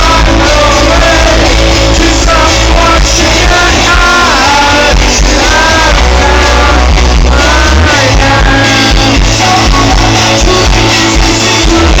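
Live rock band playing a song with a male lead singer, loud and heavy in the bass.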